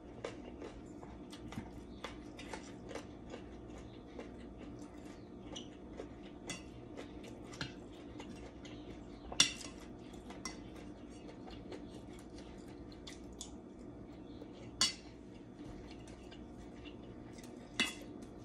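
Stainless spoon and fork clinking and scraping against a metal plate while eating, with three sharper, louder clinks: about nine seconds in, near fifteen seconds, and near the end. A low steady hum runs underneath.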